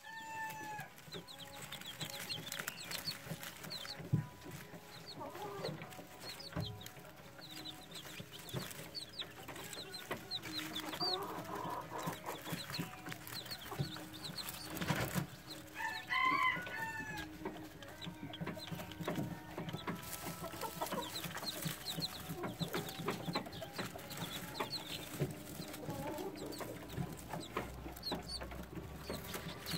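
Serama bantam chicks peeping, a steady stream of short high cheeps from several birds, with a few louder calls about halfway through.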